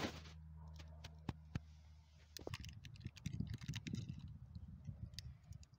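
Scattered light plastic clicks and taps from batteries being fitted into radio-control gear, with a low rumble joining in about halfway.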